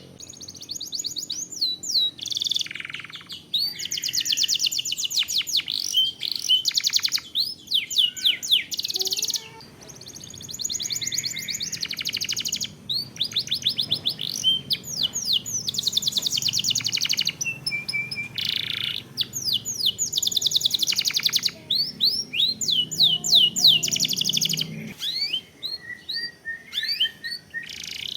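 Domestic canary singing a long, continuous song of rapid rolling trills and fast repeated sweeping notes, with only brief breaks between phrases.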